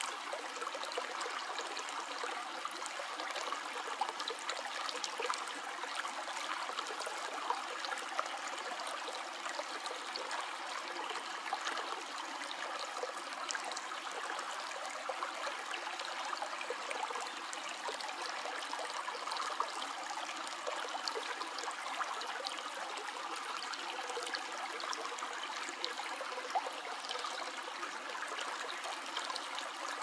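Small stream trickling over rocks: a steady rush of running water with many small splashes and drips.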